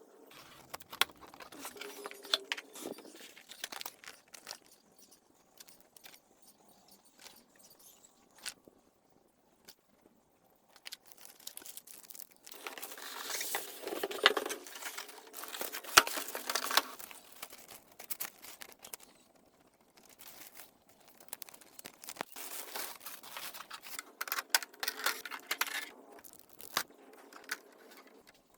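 Packaging being unpacked by hand: cardboard and plastic wrap torn, crinkled and shuffled in irregular bursts, with a few sharp clicks.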